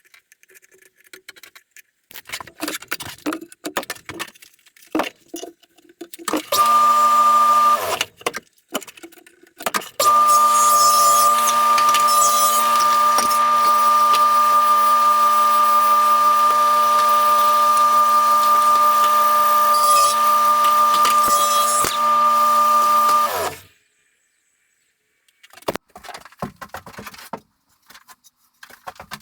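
An electric power tool motor starts for about a second, stops, then starts again and runs steadily for about thirteen seconds with a steady whine before winding down. Scattered handling knocks and rubbing on wood come before and after.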